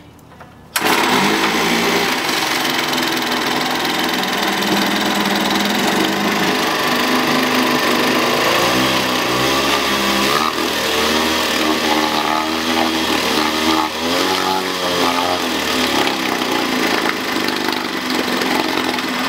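Sears Game Fisher 1.2 hp two-stroke outboard motor running in a test barrel, with its freshly rebuilt carburetor. It comes in suddenly about a second in, and the propeller churns the water. The engine speed rises and falls several times in the middle stretch.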